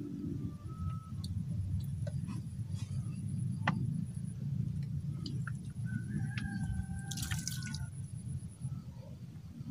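Water dripping and small splashes at the pond surface, a scattering of short drips and clicks over a steady low rumble. A faint thin high whistle runs through most of it, with a few short chirps near the end.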